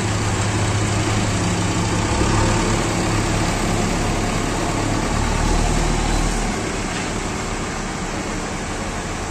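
JCB 3DX backhoe loader's diesel engine running steadily as the machine manoeuvres, easing off a little about two-thirds of the way through.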